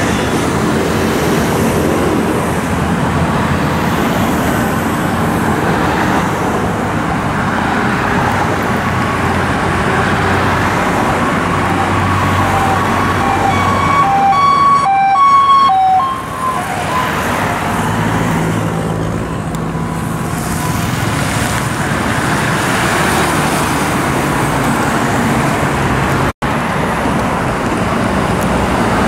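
Steady noise of dense road traffic, cars and motorbikes passing close by. Through the middle a two-tone emergency siren grows louder and then falls away about sixteen seconds in.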